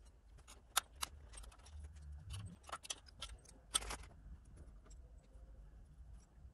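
Scattered small clicks and taps of small panel lamp bulbs being worked out of their sockets and handled, the sharpest about a second in and near four seconds.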